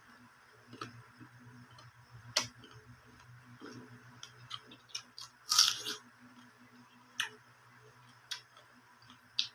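Person biting into and chewing a raw guava: a series of short, sharp crunches about a second or so apart, the loudest a few in a row about halfway through.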